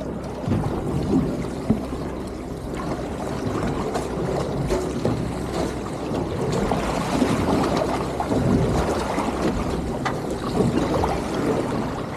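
Wind buffeting the microphone and water slapping against a fishing boat's hull, a steady low rumble under a restless, uneven wash of noise.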